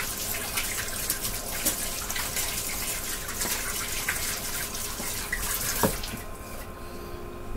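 Kitchen sink tap running with hands being washed under it, water splashing steadily; the water stops about six seconds in.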